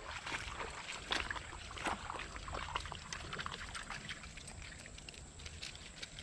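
Water splashing and trickling, with scattered small splashes and clicks, as a hooked largemouth bass is landed from the creek.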